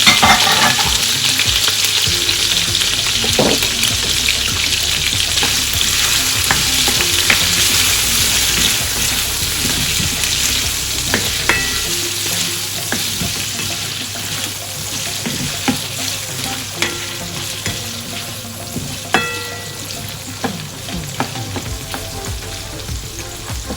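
Leftover chicken and pork adobo sizzling in a frying pan as it is stirred, with occasional clicks and clinks of the utensil against the pan. The sizzle slowly dies down.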